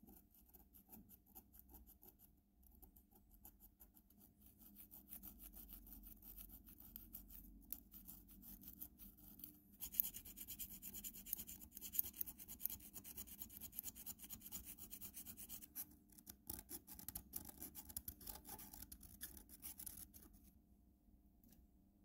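Thin metal blade scraping caked dirt and corrosion out of an old padlock's galvanized steel casing: rapid, gritty scrapes, heavier from about halfway through, stopping shortly before the end.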